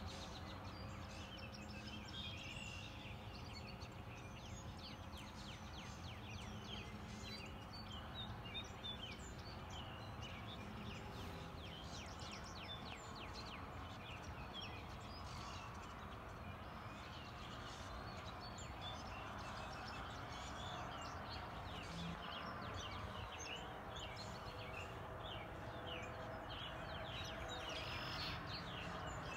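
A chorus of many wild birds calling at once: dense, overlapping short high chirps and calls, over a steady low background noise.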